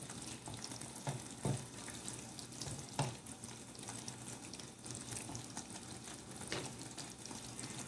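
Fish-head curry simmering and sizzling in a nonstick frying pan, with a few light knocks of a spatula against the fish and pan, the loudest about 3 seconds in.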